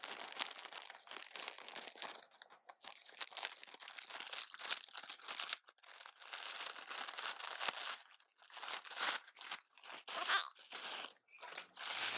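A grey mailing package being torn open and unwrapped by hand: irregular crinkling, crunching and tearing of the packaging.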